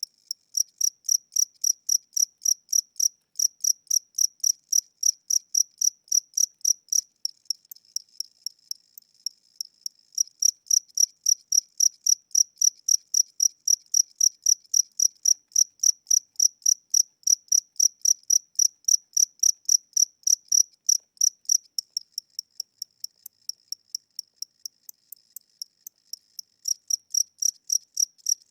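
A single cricket chirping in a slow, even rhythm, about four high-pitched chirps a second, dipping softer twice for a few seconds. The slow tempo is what the owner takes for a tired or old cricket whose wings are getting weak.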